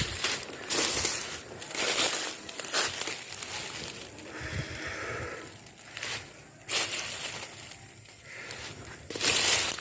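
Irregular bursts of crunching and rustling in dry cut brush, with no engine running.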